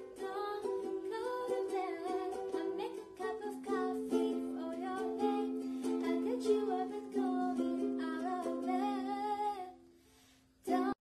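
Ukulele strummed in chords with a girl's voice singing a cover song over it. The music fades out about a second before the end.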